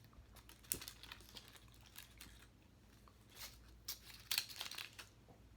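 Faint scattered clicks and rustles of objects being handled, coming in a few small clusters.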